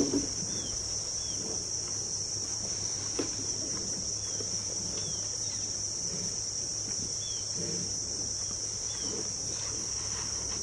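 Steady high-pitched drone of crickets and other insects, with faint short chirps about every second.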